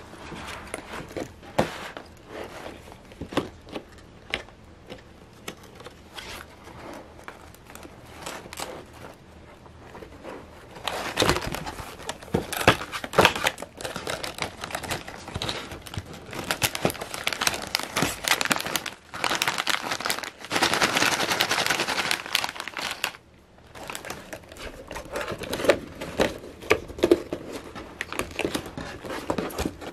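Hands opening a paperboard snack box and pulling out foil-lined chip bags: scattered taps and rustles of the cardboard at first, then, about eleven seconds in, a long spell of loud crinkling of the bags. After a brief lull, softer crinkling near the end.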